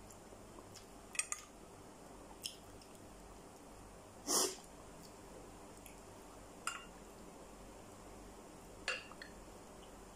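Eating sounds: scattered light clicks and taps of a metal spoon against a plate and bowl. About four seconds in there is one louder short, breathy mouth sound.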